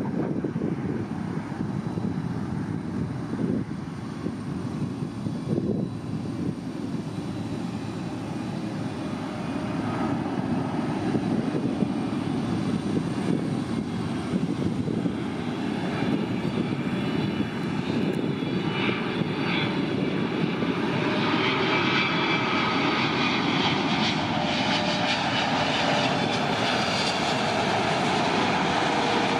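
Boeing 777 freighter's GE90 turbofan engines on final approach with gear down, a broad jet rumble that grows louder as the aircraft closes in. In the second half a fan whine joins the rumble and dips slightly in pitch near the end as the jet passes close.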